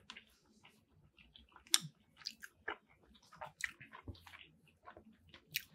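Faint, close-miked chewing of a mouthful of chicken shawarma poutine: soft, irregular wet mouth sounds with a few sharper clicks.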